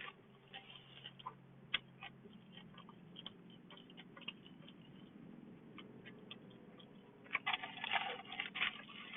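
Close-up chewing of a fried chicken sandwich: scattered soft mouth clicks, then a denser, louder run of crunching and smacking starting about seven seconds in.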